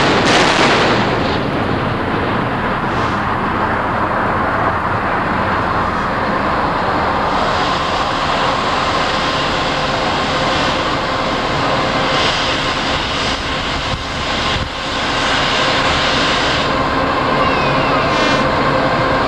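Blast of a USS New Jersey 16-inch main gun at the very start, dying away over about a second, followed by a steady rushing background noise with a faint steady hum.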